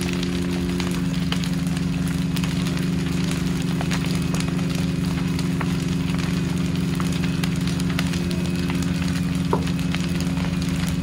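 A burning building crackling with scattered pops, over the steady drone of an engine running at constant speed. The drone is the loudest sound.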